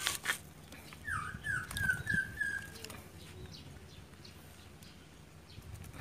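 Nestling bird cheeping: a run of about six short cheeps, each a little higher than the last, with a sharp click near the start and low handling rustles.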